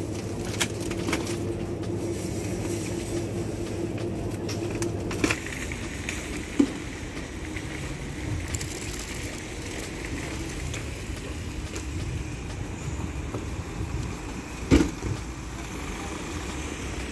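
Steady hum of a supermarket aisle, which gives way after about five seconds to car-park ambience: a low rumble of road traffic. Two sharp knocks cut through it, the louder one near the end.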